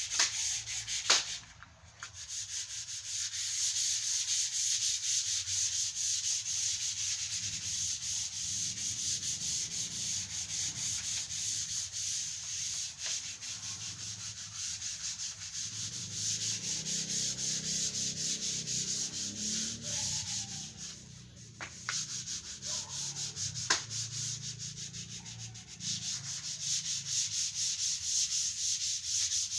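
Fine #240-grit sandpaper rubbing over a sealed wood surface, with steady quick sanding strokes smoothing the first coat of sanding sealer. There are brief pauses about two seconds in and about two-thirds of the way through.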